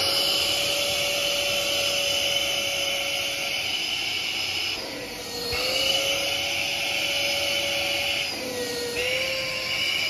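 Philips SpeedPro Aqua Plus cordless stick vacuum running with its small brush attachment drawn over sofa upholstery: a steady high motor whine that dips in pitch and level twice, about five seconds in and again near the end.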